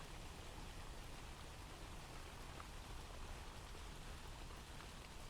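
Steady light rain with scattered drips, a recorded rain ambience playing quietly in the background.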